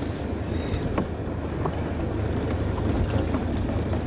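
Land Rover engine running steadily as the vehicle pushes through dense scrub, with branches and ferns scraping and slapping against the body and windscreen in scattered clicks and scratches.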